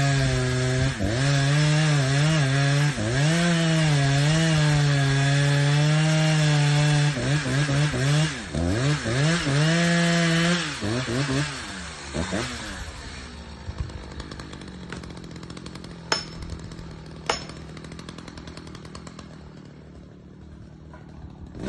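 Chainsaw cutting into a tree, its engine note rising and sagging under load. About halfway through, the throttle is released and the saw drops to a faint idle. Two sharp cracks come near the end.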